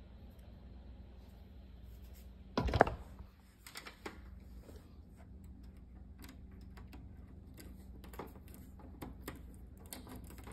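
Small clicks and taps of speaker wire being fitted into the speaker terminals of an audio receiver by hand, with one louder knock nearly three seconds in.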